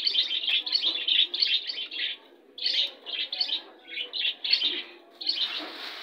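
Caged budgerigars chirping in quick shrill runs of short notes, with a pause about two seconds in before they start again. Near the end a rustling noise comes in.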